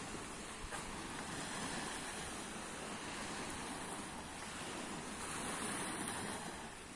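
Small sea waves washing in, a steady hiss that swells and eases every few seconds.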